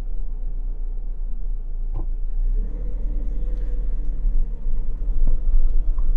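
Strong wind rumbling on the microphone, with a steady low hum coming in about two and a half seconds in.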